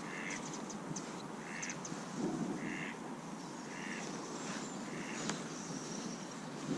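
A bird calling over and over, a short call about once a second, over steady outdoor background noise.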